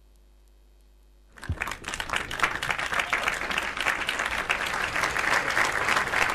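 Near silence with a faint steady hum, then about a second and a half in an audience starts applauding, building quickly and going on steadily.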